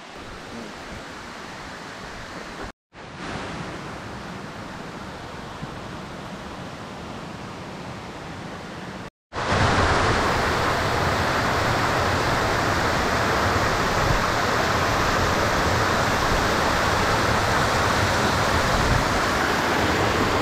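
Steady rushing water, moderate at first, then much louder after a sudden cut about nine seconds in.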